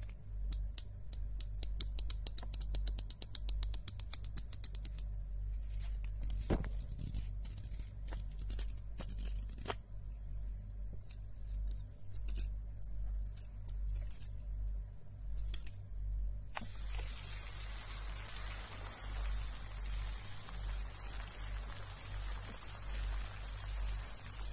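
Fingers tapping and scratching a white plastic bottle close to the microphone: a fast run of light clicks at first, then scattered taps. About two-thirds of the way through, a steady, even hiss sets in abruptly.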